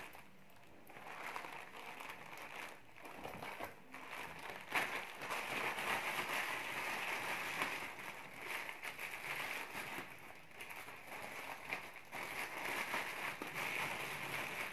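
Plastic courier mailer bags crinkling and rustling as a parcel is handled and opened, with irregular small crackles.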